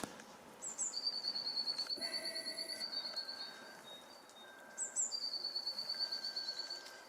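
A small songbird singing twice: each song is a short high note followed by a rapid, even, high-pitched trill lasting about two seconds.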